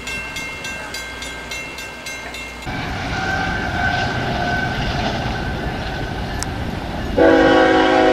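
A rumbling noise, with a loud horn chord of several tones starting abruptly near the end and lasting about a second and a half. Before the rumble begins, steady high-pitched tones pulse about four times a second.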